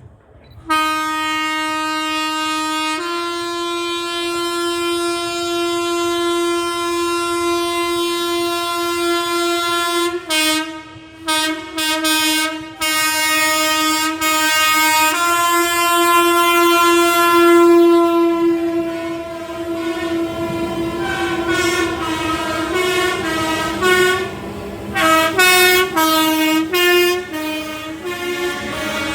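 Train horn sounding: a long held blast with a slight step up in pitch a few seconds in, a few short blasts, and a second long blast. Then a quick run of short alternating high and low notes played as a tune, over the growing noise of the passing train.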